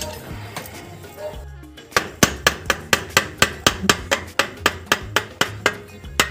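Background music, then from about two seconds in a quick, even run of hammer taps on the metal transmission case, about four or five a second.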